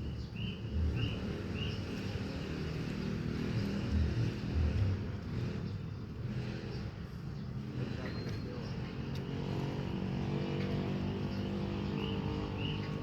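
An engine running steadily in the background, its hum firming up and growing slightly louder in the second half. A short high chirp repeats about twice a second near the start and again near the end.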